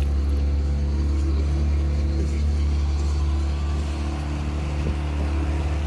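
Outboard motor running steadily at cruising speed, with the rush of wind and water from the boat's wake.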